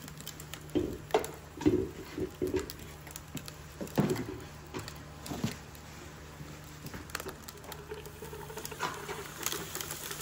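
Liquid nitrogen boiling around a steel wheel-bearing cup race, giving irregular crackling pops and ticks as the cold liquid boils off the metal. Near the end more liquid nitrogen is poured in from a dewar with a hiss.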